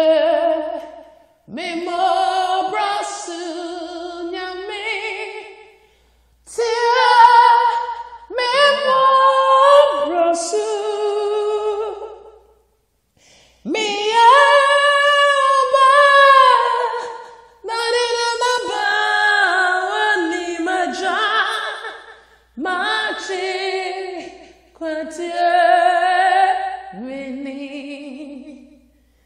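A solo voice singing a Twi gospel song unaccompanied, in phrases of a few seconds separated by short pauses, with a long held, wavering note around the middle.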